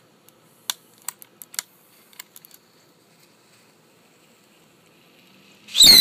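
A handful of sharp clicks as the launcher's trigger and jet lighter are worked, then a faint thin hiss from the lit bottle-rocket fuse. Near the end a bottle rocket launches from the copper-pipe barrel: a loud sudden rush with a shrill whistle falling in pitch.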